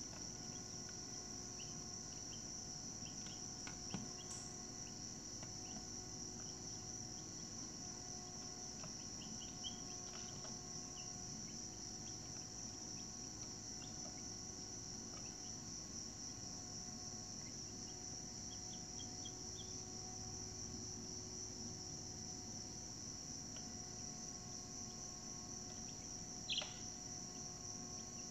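A steady, high-pitched chorus of chirping insects, with faint scattered chirps above a low outdoor rumble. A brief sharp sound near the end is the loudest moment.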